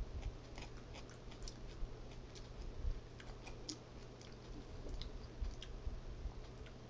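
A person chewing jalapeño slices close to the microphone: irregular small clicky crunches of chewing, with a few low bumps.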